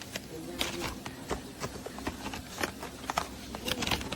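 Irregular clicks, taps and rustling of hands handling cardboard and paper packaging.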